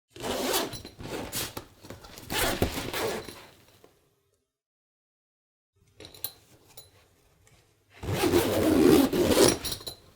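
Zipper being zipped in three quick scraping strokes, then a pause with faint handling clicks, then one longer, louder zip near the end.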